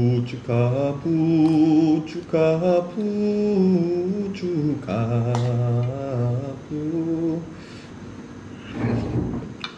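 A man humming a wordless tune, holding long notes that step and glide between pitches.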